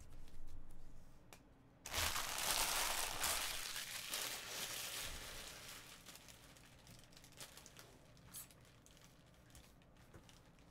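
Trading cards handled briefly, then plastic packaging crinkling and crumpling. The crinkle starts suddenly about two seconds in and fades away over the next few seconds, with a few faint clicks after.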